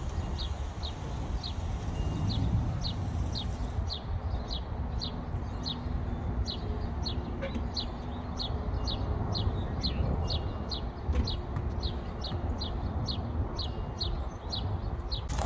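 A bird calling over and over, about two short falling chirps a second, over a steady low rumble.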